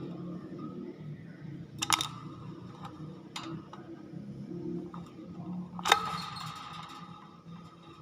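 Hill myna giving sharp, clicky squawks, three of them, the loudest about six seconds in, each of the louder ones trailing into a short whistled note, over a steady low hum.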